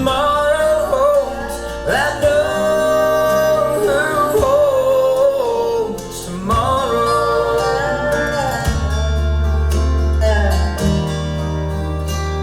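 Country gospel song playing through a Pioneer SX-424 stereo receiver and speakers, with a sung melody held in long wavering notes over plucked acoustic guitar and bass.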